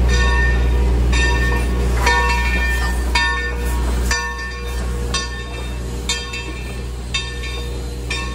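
Steam locomotive No. 30's bell ringing about once a second as the locomotive pulls away, over the locomotive's steady low rumble, which drops off about four seconds in.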